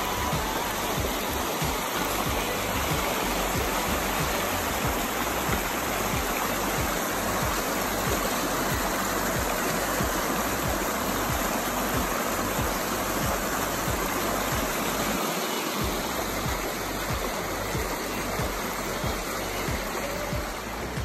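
Fast-flowing creek rushing over rocks and around a fallen log: a steady, loud wash of running water that holds evenly throughout.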